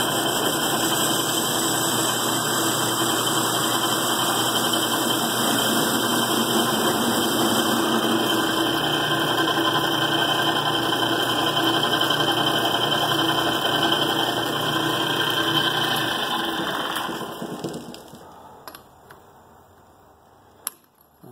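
A small, worn metal lathe running steadily while it takes a cut in a steel part. It winds down and stops about 17 seconds in, and a few light clicks follow.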